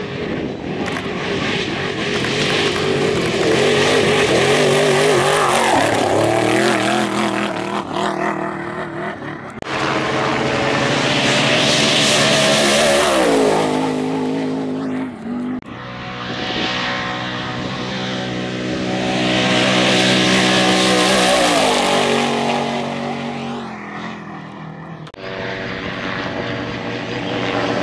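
Trophy trucks racing past one after another at high speed, each engine high-revving and loud, with the engine note falling away as a truck goes by.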